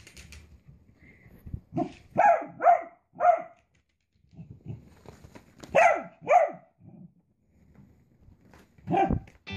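Small dog yapping: a quick run of four short, high barks, then two more, then a single bark near the end.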